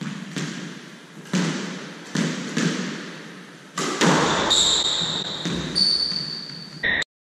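Squash rally: the ball is smacked by rackets and off the court walls in a series of sharp, echoing hits about every half second to a second. High squeaks come from the second half onward, and the sound cuts off suddenly near the end.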